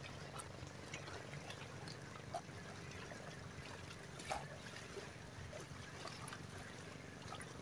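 Faint, steady sea water lapping, with scattered light ticks and clicks.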